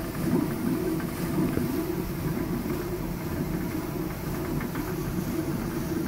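Water-powered stone flour mill (panchakki) running: the turning millstone and the water that drives it make a steady low rumble.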